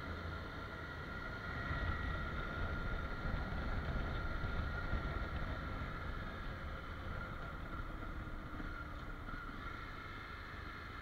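Honda CRF250 Rally's single-cylinder four-stroke engine running under way, with a low rumble, wind and road noise and a steady high whine over it. It gets louder about two seconds in and eases off again after about six seconds.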